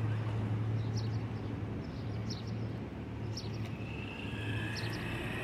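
Electric motor of a distant RC truck whining faintly, rising in pitch from about four seconds in as the truck speeds up, over a steady low hum. Short high chirps come about once a second.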